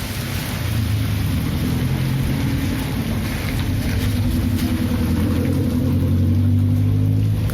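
A motor vehicle's engine running low and steady, growing louder toward the end as it comes closer, over steady rain.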